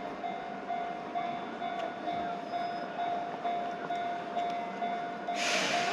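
Japanese level-crossing warning bell ringing, an even electronic ding at about two strikes a second. A loud rushing noise sets in near the end.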